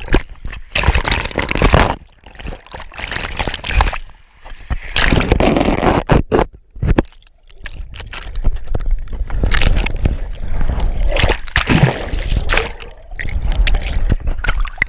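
Water sloshing and gurgling around a handheld camera moved about underwater, in irregular surges.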